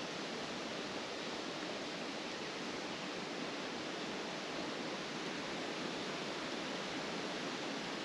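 Wind blowing through the riverside trees, a steady, even hiss with no gusts or breaks.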